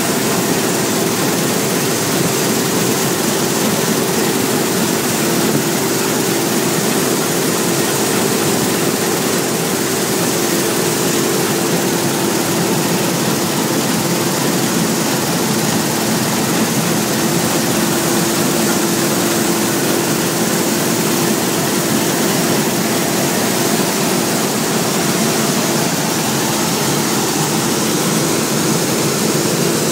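Claas Lexion 600 combine harvester running steadily while harvesting wheat: an even mechanical drone with a constant hum that does not change.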